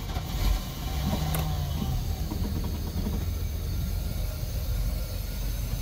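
OMC 3.8-litre V6 sterndrive engine with Holley Sniper EFI catching on a cold start, key only and no throttle, and settling into a steady idle.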